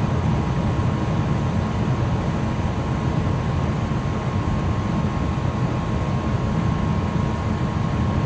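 Gas furnace running with all four burners lit and burning clean: a steady low rumble, with a thin steady tone above it.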